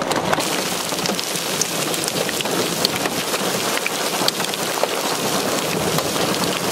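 Hail and heavy rain falling: a dense, steady hiss of rain crowded with many sharp ticks from individual hailstones striking.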